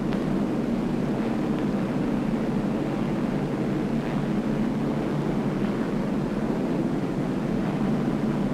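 Steady drone of propeller aircraft engines, a low even roar without breaks or explosions.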